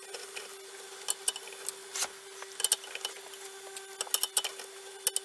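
Screwdriver turning a Prusa i3 bed-levelling screw and a sheet of paper being slid under the nozzle: scattered small clicks and scrapes at irregular intervals, over the printer's steady hum. This is bed levelling by feeling the paper's drag under the nozzle.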